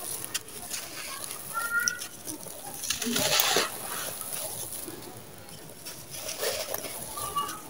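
Dry, gritty sand-cement being crushed in the hands and poured through the fingers: a crunchy, crumbling crackle over a hiss of falling grains, loudest about three seconds in.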